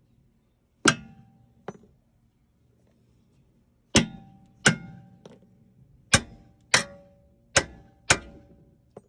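Hammer blows on metal: about ten sharp strikes, two near the start, then a quicker run of roughly two a second after a pause, each with a short metallic ring.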